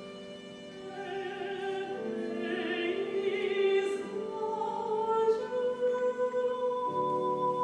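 Mezzo-soprano singing a classical art song with vibrato, over held lines from a bowed viola.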